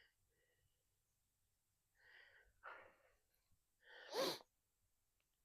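Near silence broken by a few short breath sounds from a person, the loudest and sharpest about four seconds in.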